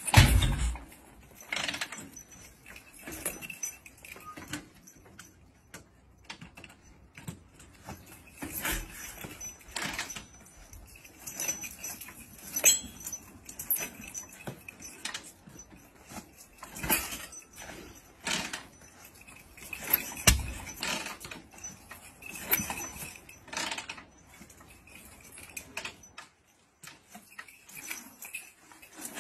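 A Harley-Davidson V-twin being kick-started over and over: a clank from the kick lever and pedal with a thump as the engine turns over, every second or few, without the engine catching. It is hard to start.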